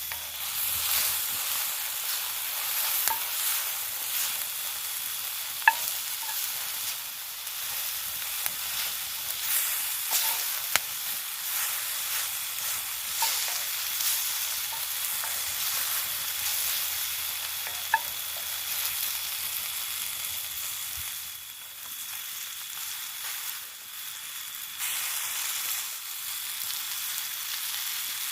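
Food frying and sizzling steadily in a hot pan, with occasional sharp pops.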